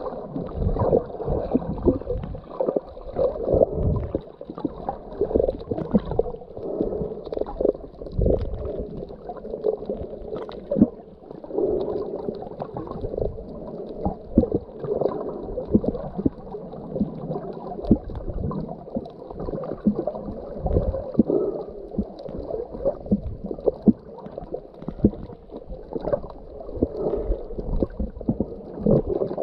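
Muffled, irregular gurgling and sloshing of water heard through a camera held underwater while snorkeling.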